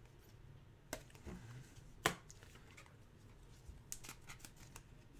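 Trading cards being handled and slid into plastic top loaders: faint rustling with a few sharp clicks, the loudest about two seconds in.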